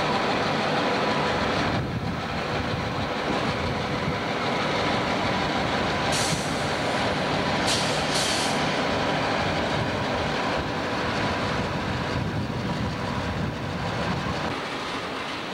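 Diesel freight locomotives rolling slowly past at close range, their engines running with a steady drone and faint steady tones, with a few brief hisses about six and eight seconds in. Near the end the sound eases a little as a freight hopper car follows.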